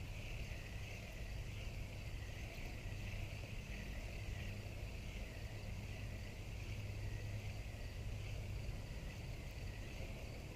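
Steady summer outdoor ambience: a continuous high insect drone, slightly wavering, over a low steady rumble.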